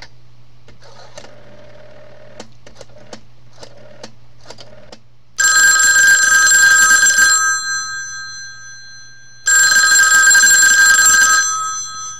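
Twin-gong bell of a vintage rotary-dial telephone ringing twice, each ring about two seconds long and dying away after it. The striker is driven back and forth by the AC ring voltage from the exchange. Before the first ring, about five seconds in, there are only a few faint clicks over a low hum.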